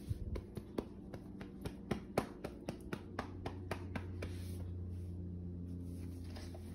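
Rapid irregular clicking from a dog nosing and licking at a tile floor, about three to four sharp clicks a second that thin out after about four seconds, over a low steady hum that comes in halfway through.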